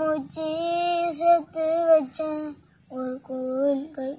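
A child singing a Tamil film song unaccompanied, holding long notes in several short phrases, the melody dropping lower about three seconds in.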